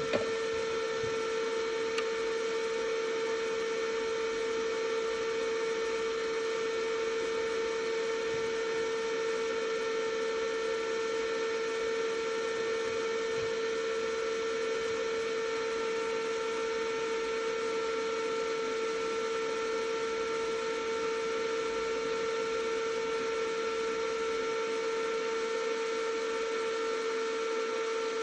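Electric motor driven by a Vevor VFD running at a steady speed, giving a steady whine with a stack of overtones: the drive has gone into run mode on power-up with no start signal at its X terminals. A faint click comes about two seconds in.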